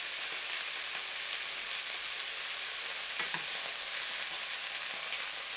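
Beef rouladen sizzling steadily as they sear and brown in a frying pan. There is a brief knock about three seconds in as a roulade is turned with a fork.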